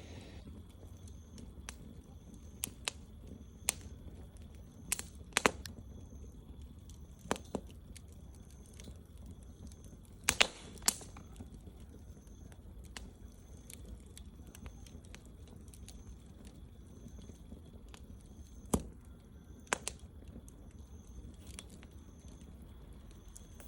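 Wood fire crackling, with sharp irregular pops and snaps, the loudest a few close together about halfway through, over a steady low rumble. A faint high chirp repeats about once a second.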